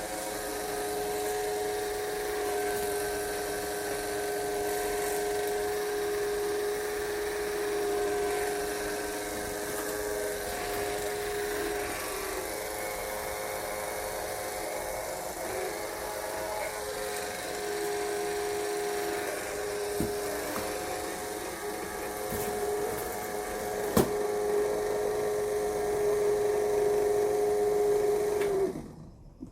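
A small electric motor, such as a power tool, runs with a steady whine, its pitch wavering slightly, with a sharp click partway through. Near the end it is switched off and winds down.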